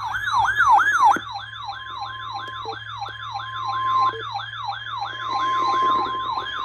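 Electronic siren-style alert tone for an emergency alert broadcast, yelping in quick falling sweeps about three times a second. A fainter steady tone sounds under it for parts of the time.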